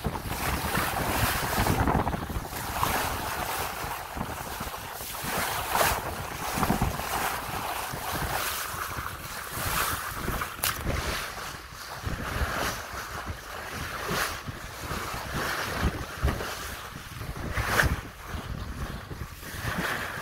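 Water rushing and splashing along the hull of a Hunter 356 sailboat under sail, its bow wave breaking against the side, with wind buffeting the microphone. The rush rises and falls in surges, with a sharper splash now and then.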